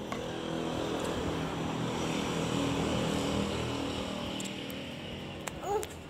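A motor vehicle's engine going past: a steady hum that swells to its loudest midway and then fades. A brief high squeak comes near the end.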